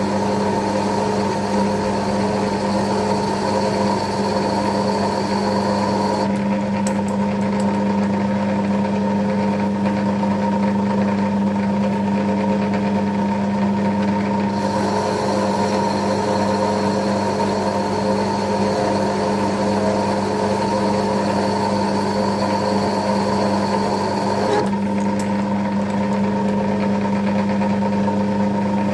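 Centre lathe running steadily during thread cutting, a low motor and gear hum throughout. A high thin whine over it stops about six seconds in, returns about halfway through, and stops again with about four seconds left.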